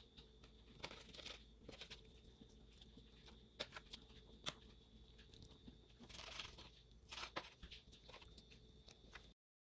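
Chef's knife cutting through raw fish fillets on a plastic cutting board: faint, scattered taps and crunches of the blade through the flesh and against the board. The sound cuts off to silence just before the end.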